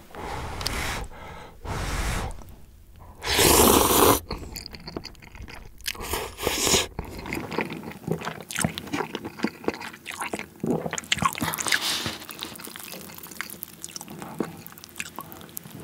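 Close-miked eating of Jjapaghetti black-bean-sauce cup noodles: a loud slurp of noodles lasting about a second, about three seconds in, then a long run of wet chewing with many small clicks and smacks.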